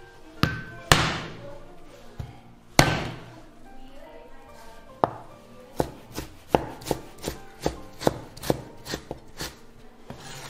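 Chinese cleaver chopping fresh ginger on a wooden chopping board. Three heavy blows come in the first three seconds, then a run of quicker, lighter chops, about two to three a second, as the ginger is minced.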